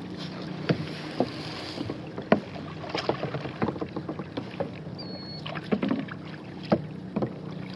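Kayak paddle strokes: blades dipping into calm water with irregular small splashes, drips and light knocks, over a steady low hum.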